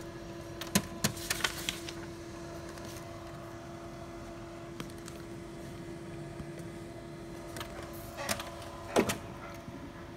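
Sharp plastic clicks and knocks from handling a laser printer toner cartridge: a cluster about a second in and two more near the end, the loudest just before the end. A steady low hum runs underneath.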